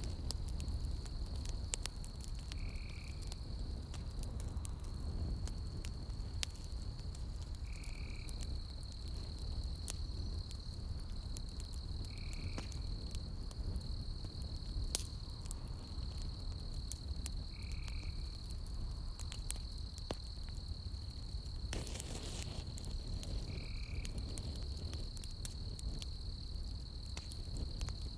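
Campfire crackling with scattered sharp pops, over a steady high-pitched drone of night insects and a short call repeated about every five seconds.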